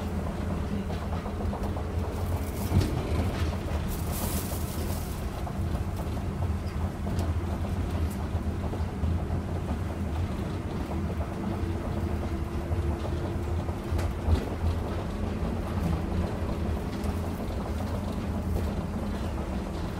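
Interior running noise of a rubber-tyred Osaka New Tram automated guideway car travelling at speed: a steady low rumble with two sharp knocks, about three seconds in and again about fourteen seconds in, and a brief hiss about four seconds in.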